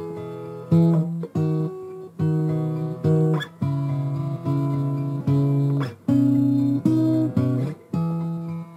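Background music: a guitar strumming chords, each chord starting sharply and fading before the next, about one to two strums a second.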